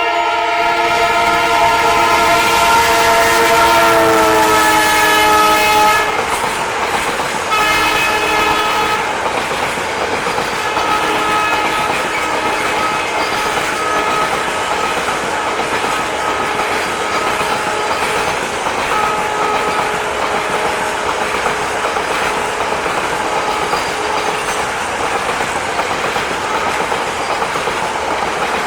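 WDG-4 diesel locomotive's several-note horn sounding a long blast whose pitch drops as the locomotive passes, then cutting off, followed a moment later by a second short blast. After that a heavy freight train of BLC container wagons rolls past steadily.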